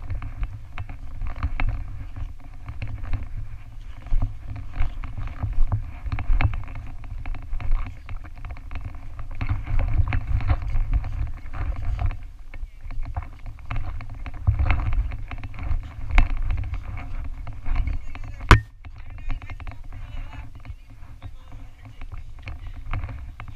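Muffled rumbling and knocking through a head-mounted GoPro's housing as the wearer drops again and again to the dirt doing burpees, the loudness rising and falling with each rep. A single sharp click about three-quarters of the way in.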